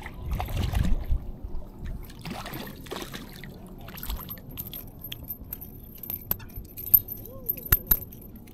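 A hooked trout splashing at the surface as it is reeled to the bank, two bursts of splashing in the first three seconds, followed by scattered light clicks and taps as the fish is landed and handled.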